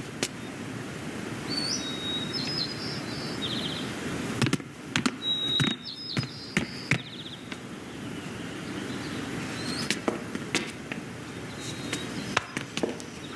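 Film sound effects: short bird chirps and trills in a few brief bursts over a steady background hiss, with scattered sharp knocks and taps throughout.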